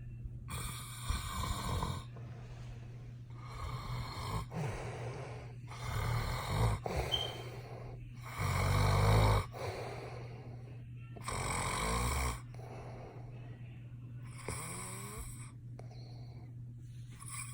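Loud snoring: a series of noisy snored breaths every one to three seconds, the loudest about halfway through, over a steady low hum.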